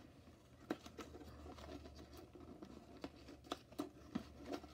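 Hands working at a doll's cardboard box packaging: faint, scattered clicks and scratches, coming more often in the second half.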